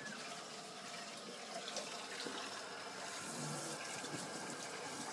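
Steady rush of water running, like a kitchen tap, with a few small clicks and knocks.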